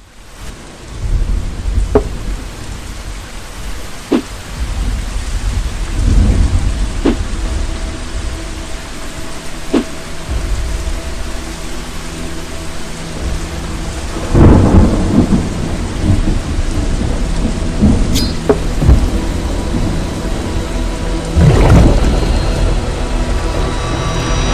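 Thunderstorm: steady heavy rain with thunder. Sharp cracks come a few seconds apart in the first ten seconds, then long low rumbles swell and fade about 6, 14 and 21 seconds in.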